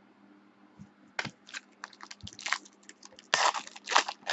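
A foil trading-card pack being torn open and its wrapper crinkled by hand: a run of quick crackling rustles starting about a second in and loudest near the end.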